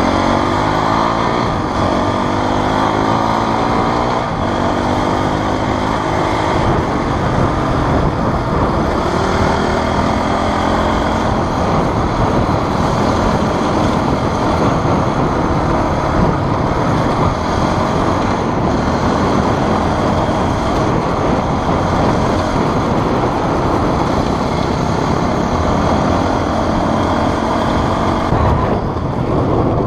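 Enduro motorcycle engine running hard as the bike is ridden at speed, its pitch rising and falling with the throttle through the first few seconds, heard close from an onboard camera.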